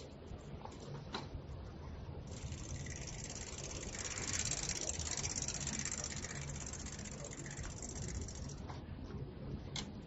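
10-speed bicycle in motion, its chain, gears and freewheel ratcheting and rattling. A hiss swells from about two seconds in and drops back near the end.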